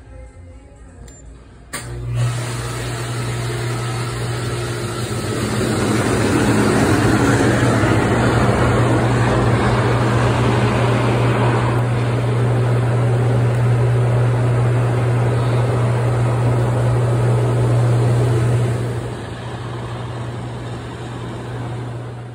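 HydroMassage bed's pump switching on suddenly and running with a steady low hum, its water jets rushing under the bed's cover. The rush swells a few seconds in and eases off near the end.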